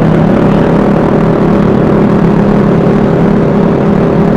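Vespa S 125 scooter's single-cylinder four-stroke engine running at a steady speed while under way, a constant hum with wind and road noise over the microphone.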